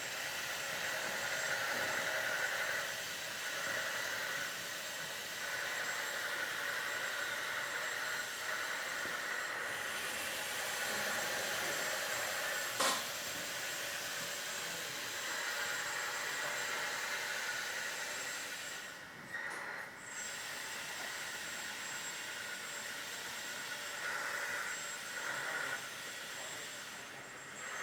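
1/14-scale LESU DT60 RC hydraulic bulldozer working: its electric hydraulic pump and track drive motors run with a rushing whine that swells and eases as the controls are worked, mixed with the diesel engine sound from its sound board speaker. A single sharp click about 13 seconds in.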